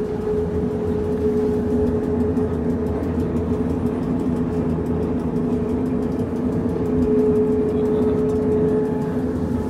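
Pilatus Railway electric rack railcar running downhill: a steady whine from the drive over a low running rumble.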